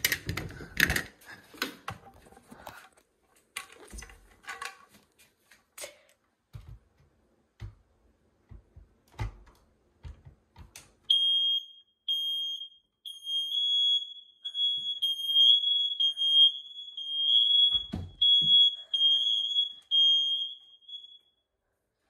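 Ceiling-mounted smoke alarm sounding when its test button is pressed with a pole: a shrill high-pitched beeping that starts about eleven seconds in, in short beeps at first and then almost unbroken, and stops shortly before the end. Before it come scattered handling clicks and knocks, with another knock while the alarm sounds.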